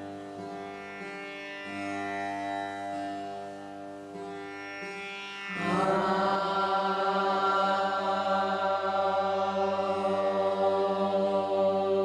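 A long many-stringed drone instrument lying across the player's lap, ringing with a steady drone, with a woman singing long held notes over it. The drone dies away gradually, then is struck again about six seconds in and rings on louder.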